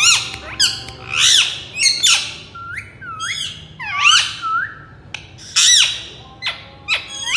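Indian ringneck parakeet calling: loud, harsh squawks mixed with rising whistled calls, one every half second or so.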